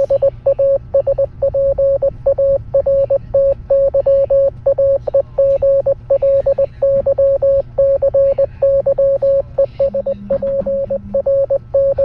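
Morse code played as electronic beeps: one steady mid-pitched tone keyed on and off in a continuous run of short dots and longer dashes.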